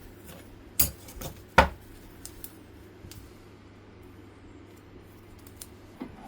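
Steel pieces clinking against one another: three sharp clinks about a second in, then a few lighter ticks, over a steady low hum that cuts off near the end.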